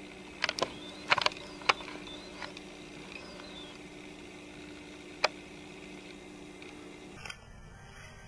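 Several sharp clicks, a quick cluster in the first two seconds and one more about five seconds in, over a steady low hum that stops suddenly near the end.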